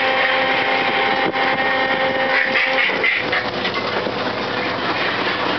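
Fishing boat's engine and machinery running steadily, with a steady hum that drops out about three seconds in while the engine noise carries on.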